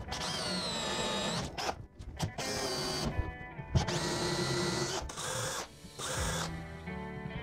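Cordless drill running in a series of short bursts, each spinning up and winding down, boring 35 mm hinge-cup holes with a Forstner bit in a wooden cabinet panel. Near the end, another cordless drill briefly drives hinge screws.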